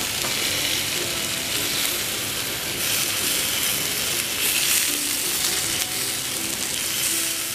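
Soy-marinated chicken thighs sizzling steadily on a hot grill grate, with an occasional scrape or click of metal tongs as pieces are turned.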